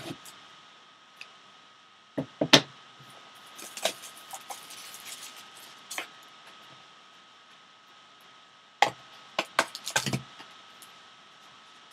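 Plastic shrink-wrap crinkling as it is pulled off a sealed trading-card box, with sharp clicks and taps of the cardboard box being handled and opened, clustered about two seconds in and again near the end.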